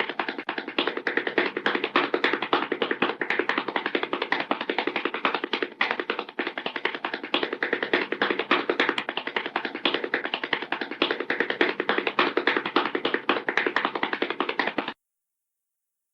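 Cartoon sound effect: a rapid, unbroken clatter of taps for about fifteen seconds, which cuts off suddenly near the end.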